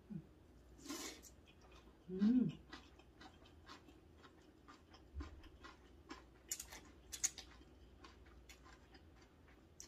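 Thin chilled noodles being slurped off chopsticks and chewed: a few short slurps with soft wet chewing clicks in between, and a brief hummed "mm" about two seconds in.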